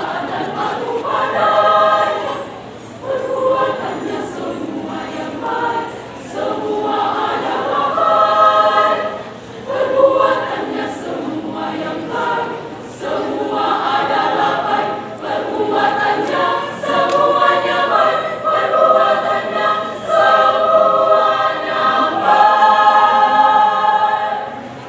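Women's church choir singing in parts, phrase by phrase with short breaths between, ending on a long held chord.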